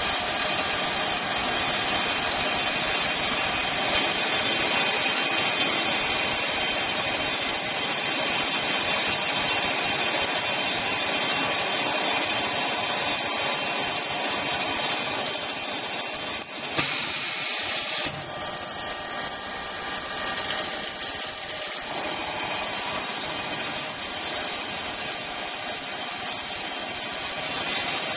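CNC drilling and flame-cutting machine at work: steady mechanical running noise with several steady tones in it. A short burst of hiss comes a little past halfway, after which it runs somewhat quieter.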